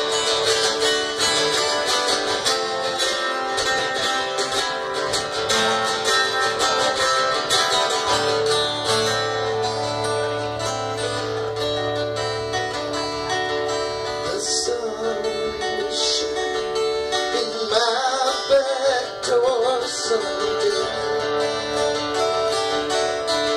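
Acoustic guitars playing a live folk-rock jam, with steady strummed rhythm under a picked lead line.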